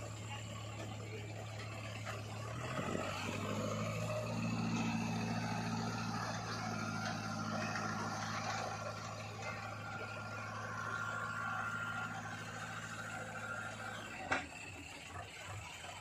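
ACE 350 DI tractor's diesel engine running under load, working the hydraulic tipper ram that raises the trailer bed to dump soil. Its note picks up about three seconds in and drops away near the end with a short knock.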